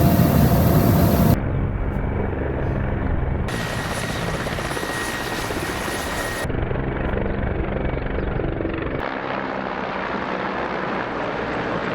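Military helicopter flying, its rotor and turbine engines running steadily, over several cut-together shots whose sound changes suddenly at each cut. The first second or so is louder, a rushing noise that drops away abruptly.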